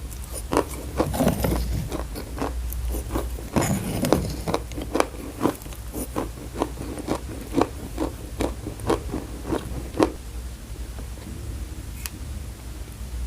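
Close-miked chewing of chalk: sharp, irregular crunches about one or two a second, thinning out about ten seconds in.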